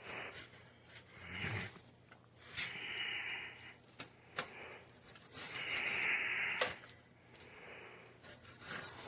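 A utensil scraping against a pizza pan twice, each scrape about a second long, with a few light knocks between them.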